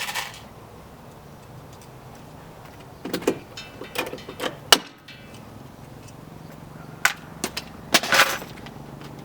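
Scattered clicks and knocks with some rustling, from hand work fitting the last stud of a caravan draft skirt. There is a sharp sound at the very start, a cluster of clicks about three to five seconds in, and a few more knocks near the end.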